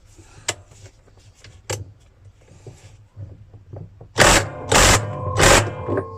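Power wrench driving a 36 mm deep socket in three short bursts to tighten the washing machine's drum nut. The metal drum rings on after the last burst. A few light clicks of the socket being handled come first.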